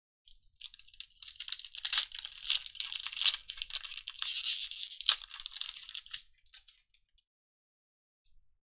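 Foil wrapper of a 2021 Mosaic football card pack crinkling and tearing open in the hands, a dense crackle lasting about six seconds with a sharp snap about five seconds in.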